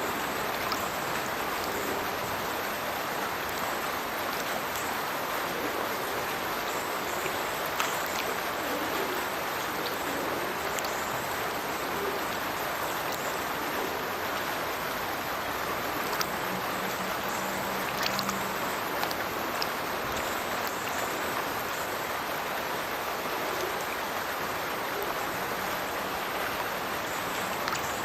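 A burn pouring from a culvert outfall into a river: a steady rush of falling and running water, with a few faint brief splashes standing out now and then.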